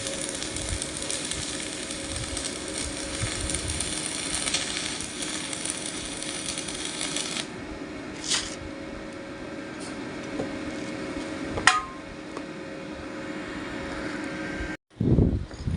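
Electric arc welding: a steady crackling hiss for about seven seconds, then the arc stops. A couple of sharp metal clinks follow, and loud metal knocks come near the end.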